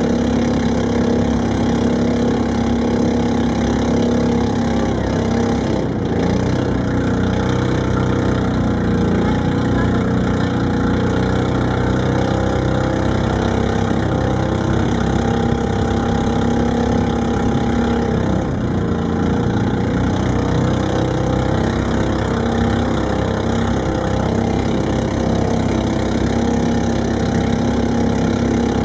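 Small boat's engine running steadily under way, an even drone over a constant rush of wind and water.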